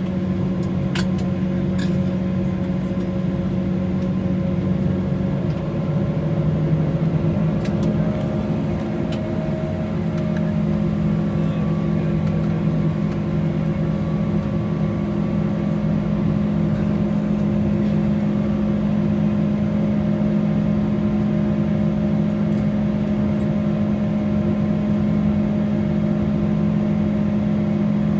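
Steady drone inside the cabin of an Embraer E190 taxiing after landing, its General Electric CF34 jet engines at idle, heard as a rumble with several steady humming tones. About five seconds in, the lowest hum shifts and splits into two pitches, and a few faint clicks come early on.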